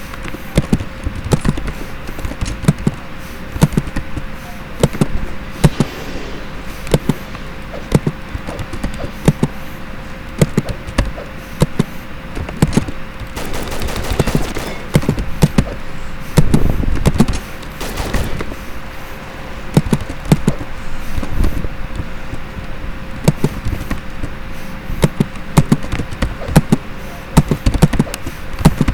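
Engine running roughly, with irregular sharp cracks or pops about one to two a second over a steady hum, growing louder and denser about halfway through.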